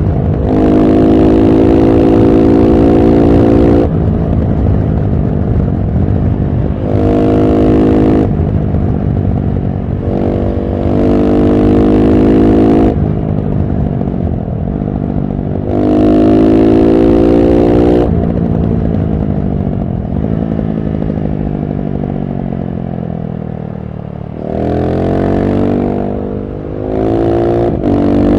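KTM 690 SMC-R's single-cylinder engine through a LeoVince One Evo slip-on exhaust with dB-killer, being ridden in a series of hard pulls about six times. Between pulls the throttle is rolled off and the engine note falls away, with a long coast-down in the middle.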